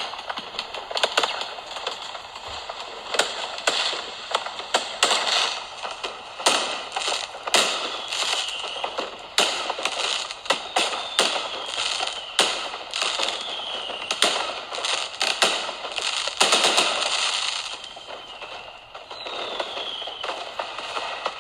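Fireworks going off continuously: many sharp bangs and crackling bursts in quick succession, with a few short whistles that fall in pitch.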